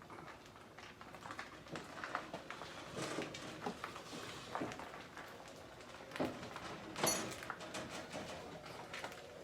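Scattered light knocks, clicks and rustles of handling, with one sharper clink that rings briefly about seven seconds in.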